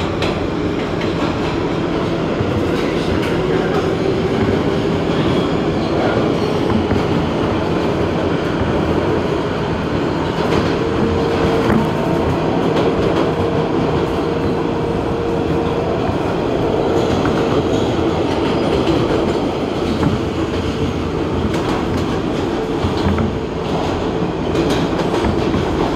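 New York City Subway 7 express train running at speed, heard from inside the car: a steady, loud rumble of wheels on rail with a level whine and occasional sharp clicks.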